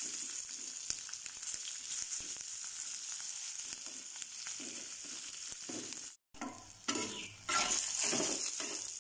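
Halved tomatoes and chillies sizzling steadily in hot oil in a frying pan. After a brief dropout about six seconds in, a metal spatula scrapes and stirs them around the pan in repeated strokes.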